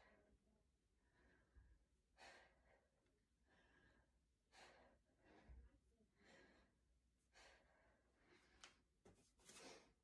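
Faint breathing: a woman's forceful exhales, one about every one to two seconds, timed with half-kneeling kettlebell shoulder presses.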